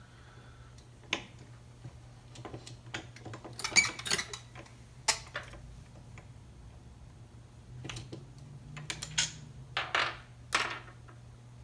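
Small metal hand tools and engine parts clinking and scraping while the wrist pin is worked out of a chainsaw piston with a pin pusher. Irregular sharp clinks come with a few short scrapes, busiest about four seconds in and again near the end.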